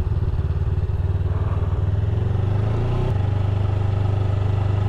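Honda Rebel 500's parallel-twin engine running at low speed under the rider, a steady pulsing note whose pitch rises a little about two seconds in and steps up about three seconds in.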